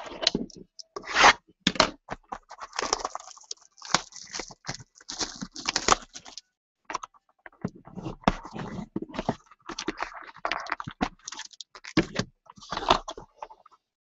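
Hands opening a cardboard trading-card box and its plastic wrap: an irregular run of scrapes, rustles, crinkles and small knocks.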